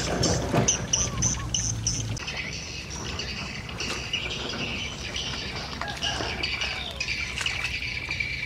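Outdoor ambience of birds chirping with insects buzzing steadily. For the first two seconds a low hum sits underneath a quick run of short, high chirps; after that the sound changes abruptly and the insect and bird sound carries on alone.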